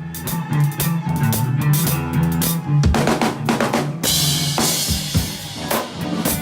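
Live rock band playing, with a drum kit pounding out bass drum and snare hits over a steady bass line, and a long bright crash about four seconds in.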